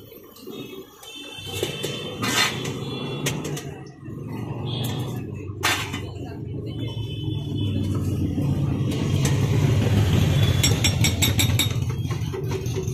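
A motor vehicle engine idling close by, a steady low rumble that grows louder in the second half. Over it come a few sharp clinks of a metal spatula and grater on the iron dosa griddle, and a quick run of light taps near the end.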